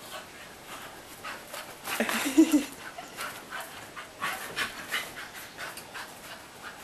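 Young dog panting hard and rhythmically, about three to four breaths a second, winded from a bout of frantic running (zoomies). A short, loud vocal sound comes about two seconds in.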